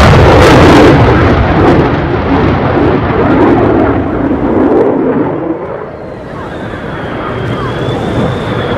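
Roar of an F-35C's single Pratt & Whitney F135 jet engine in a high-g display pass. It is loudest at first, eases off over about six seconds, then slowly builds again, with a faint high whine over the last few seconds.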